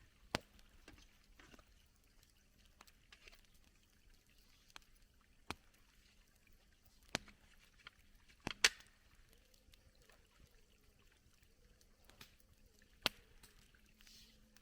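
Campfire crackling: a handful of scattered sharp pops over a quiet background, the loudest a double pop about eight and a half seconds in.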